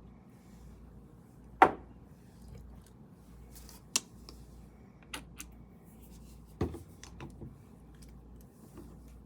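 A handful of sharp knocks and clicks from painting gear being handled and set down. The loudest comes about a second and a half in, and another strong one comes midway, followed by a few lighter taps.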